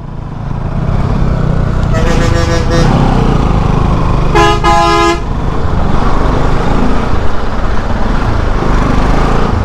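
Two vehicle horn blasts in a traffic jam, each under a second long, the second one about two and a half seconds after the first and louder. Under them runs the steady rumble of a Bajaj Pulsar NS200 motorcycle's engine and road noise as it rides slowly through the traffic.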